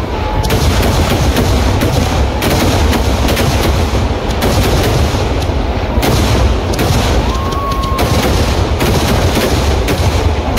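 Kerala temple-festival fireworks barrage (vedikettu): a dense, unbroken string of loud firecracker bangs going off in rapid succession, with a brief whistle about seven seconds in.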